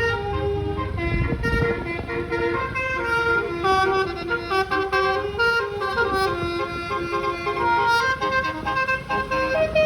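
Bus telolet horn with twelve roof-mounted trumpets playing a quick melody, its steady notes changing pitch every fraction of a second, often several at once. A low rumble swells briefly about a second in.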